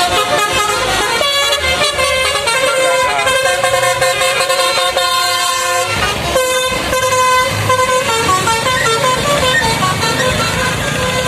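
Bus telolet horn, a Basuri multi-tone musical air horn, playing a tune in held notes that step from pitch to pitch, with a short break about six seconds in.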